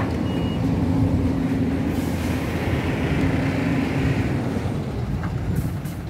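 Diesel engines of a Hyundai crawler excavator and a dump truck running with a steady drone. A louder hiss swells for a couple of seconds in the middle, and the drone fades near the end.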